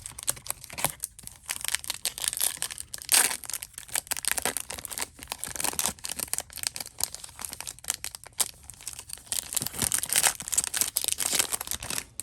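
Trading-card pack wrapper being torn open and crinkled in the hands, a continuous crackling rustle that stops suddenly at the end.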